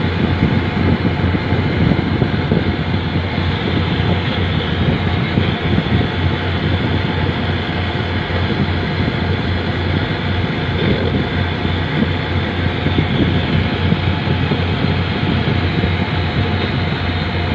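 Steady low rumble of a boat's engine running, with no break or change in level.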